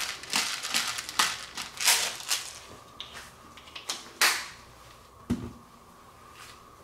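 A hand pepper mill being twisted to grind black pepper: a quick run of dry grinding rasps over about two and a half seconds. Two knocks follow, near four and five seconds in.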